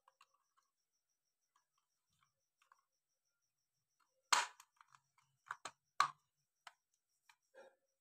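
Hard plastic clicks and knocks from a hair dryer being handled. A cluster of about half a dozen sharp clicks comes in the second half, the first the loudest. The dryer is not running.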